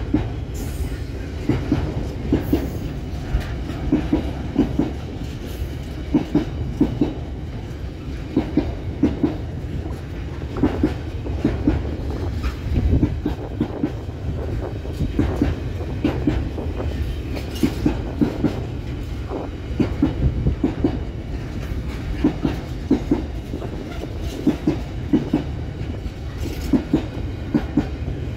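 Container freight train rolling past: a steady low rumble of the wagons with a regular clickety-clack as the wheelsets cross rail joints, the clicks coming in repeating groups.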